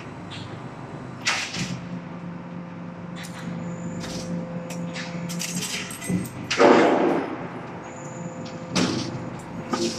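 Hydraulic punching press on a highway guardrail roll-forming line at work, punching galvanized steel strip. A steady hum from its hydraulic unit runs for a few seconds, with sharp metallic clanks about a second in and near the end, and a louder half-second rush of noise about two-thirds through.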